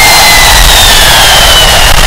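Hawker Siddeley Nimrod MR2's Rolls-Royce Spey Mk 250 turbofan engines running at close range, very loud and steady, with a high whine that slowly drops in pitch.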